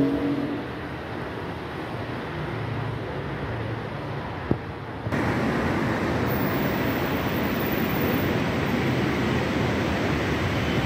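Steady outdoor rumble of distant road traffic, with a single sharp tap about four and a half seconds in. Just after five seconds the noise suddenly becomes louder and rougher, like wind on the microphone, and stays that way.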